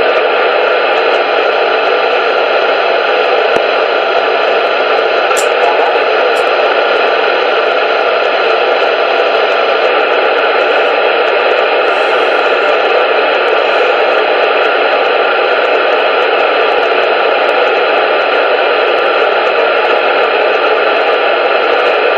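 CB radio receiver hissing with loud, steady static on an open channel, with no transmission coming through.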